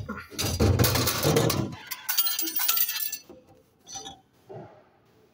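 Royal Vendors Coke vending machine delivering a 20 oz plastic bottle: a loud clatter as the bottle drops into the delivery bin, then a brighter rattle as it settles. Near the end, short knocks as the bottle is pulled out through the bin flap.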